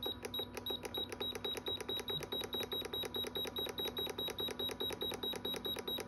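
Alpicool C50 portable fridge's control panel beeping rapidly and evenly, about five short beeps a second, as the temperature button is held down and the set temperature steps down one degree per beep.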